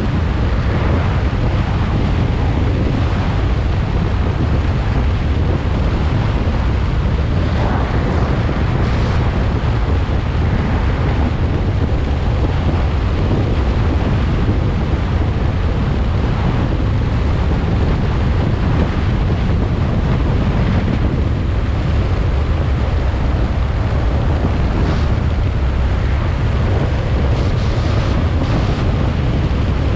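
Steady wind noise buffeting the GoPro's microphone on a moving car, over a constant low road rumble.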